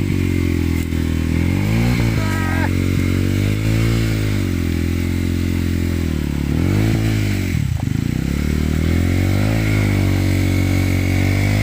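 Motorcycle engine running hard and revving up and down, its pitch rising and falling several times, with a sharp drop about two-thirds of the way through before it picks up again.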